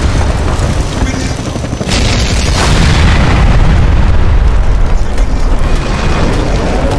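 Explosion sound effects: a loud, continuous deep rumble, with a fresh blast about two seconds in.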